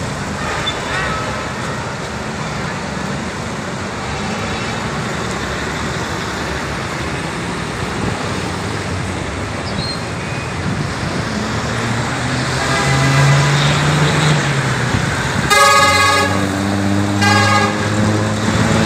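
Heavy road traffic on a wet road: engines running with a steady hiss of tyres and traffic, a deeper engine drone coming in past the middle. Near the end a vehicle horn honks twice, the first blast the longer.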